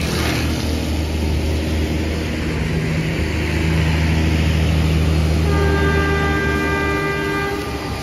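Bus diesel engine running loud and steady, with a multi-tone basuri telolet horn sounding a held chord for about two seconds in the second half.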